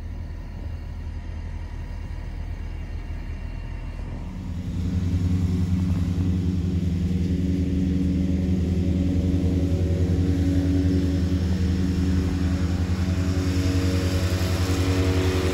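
Car engine and road noise while driving: a steady low rumble that grows louder about four and a half seconds in, with a humming drone that then holds steady.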